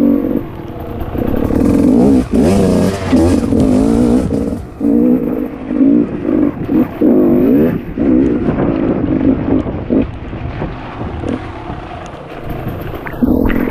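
Enduro dirt bike engine revving in repeated short bursts, the throttle opened and closed so the pitch rises and falls every second or so, as when picking a way over rocks.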